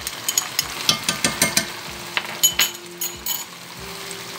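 Chicken and vegetables sizzling and crackling in a cast-iron casserole, with scattered clicks and knocks of a spoon against the pot as mustard goes in and is stirred. A faint steady hum joins about one and a half seconds in.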